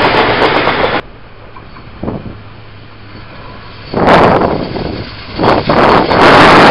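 Train noise on station tracks, loud and rushing: it cuts off abruptly about a second in, goes quiet, then swells back up after about four seconds and stays loud to the end.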